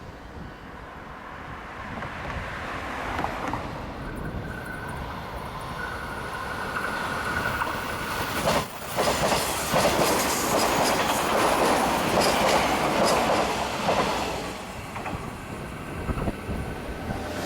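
A train passing close by over the crossing, its wheels clattering over the rail joints. The sound builds up with a thin steady whine, is loudest for about six seconds in the middle, then dies away.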